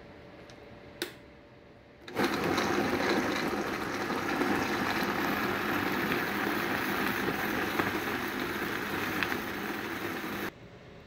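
Countertop blender running steadily, puréeing avocado, jalapeños, cilantro and water into a liquid salsa; it starts suddenly about two seconds in and stops abruptly shortly before the end. A sharp click comes about a second in, before the motor starts.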